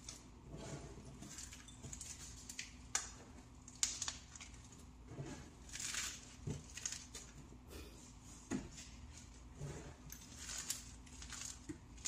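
Pressed powder blocks crushed and crumbled by hand, giving soft, uneven crunches mixed with sharp little crackles and a few dull thuds.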